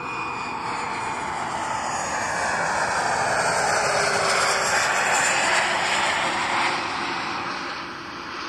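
An aircraft coming in to land passes by, its engine noise swelling to a peak about four to six seconds in and then fading, with a falling whine as it goes past.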